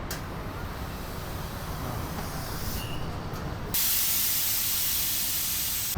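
Compressed air hissing from an inflator line into a freshly fitted motorcycle tyre being pumped up to about 35 psi. A louder, sharper hiss starts a little under four seconds in.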